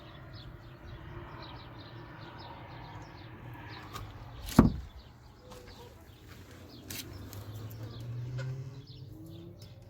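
A single sharp, loud knock about halfway through, like a wooden door or lid banging, with a smaller click a couple of seconds later. Faint bird chirps repeat in the first part.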